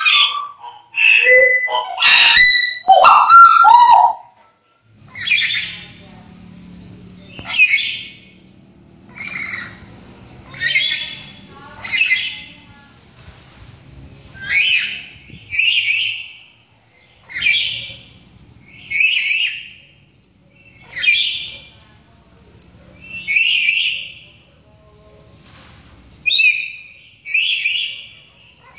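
A bird calling: loud, pitched calls in the first four seconds, then a long series of short calls repeated roughly every second and a half.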